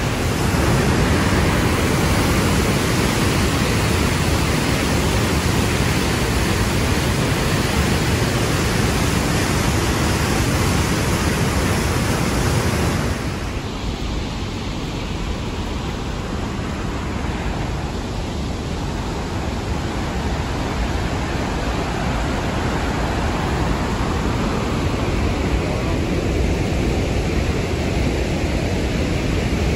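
Steady rush of a large waterfall's water. About 13 seconds in it turns duller and a little quieter as the high hiss drops away.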